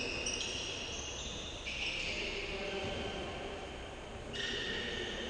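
A futsal game on an indoor court: high-pitched squeaks of players' shoes on the hall floor, several held for a second or more and shifting in pitch, over a low hum.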